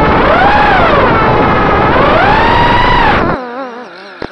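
FPV quadcopter's four EMAX RS2205 brushless motors and propellers whining loudly, the pitch rising and falling with the throttle. A little over three seconds in the sound drops sharply to a quieter, wavering whine as the throttle is cut and the quad tips into a dive.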